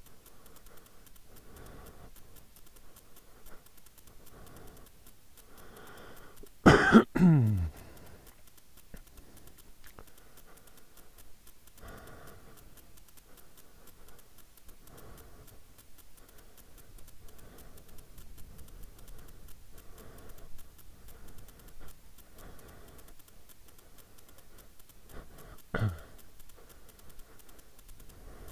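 A person coughing, loud and sudden about seven seconds in, and once more briefly near the end, over faint low background sound.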